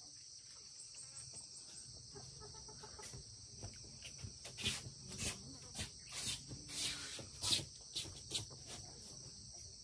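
A steady high-pitched drone of insects, with a chicken clucking from about halfway in: a run of short clucks, about two a second.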